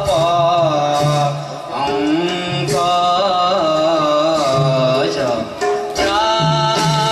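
Male voice singing a Borgeet, an Assamese devotional song, in Raga Ahir with ornamented, gliding melodic lines. It is accompanied by irregular khol drum strokes and a bamboo flute.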